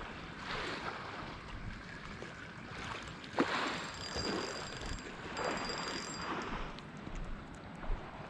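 Small sea waves washing against a stone quay in irregular swells, with one sharp click about three and a half seconds in.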